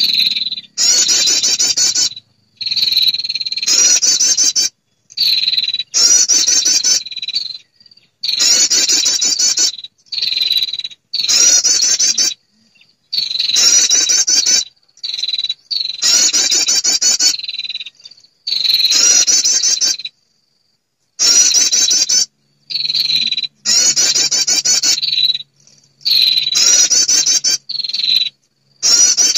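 Lure recording of a female prinia (perenjak) calling to draw males: loud, rapid trilled phrases about a second long, repeated roughly every two seconds with dead-silent gaps between them.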